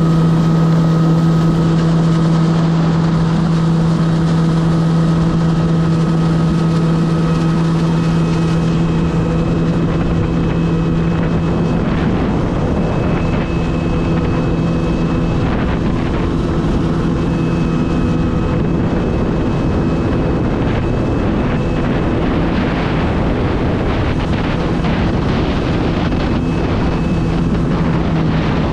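Kawasaki jet ski's engine running steadily under way, an even hum, with wind buffeting the microphone.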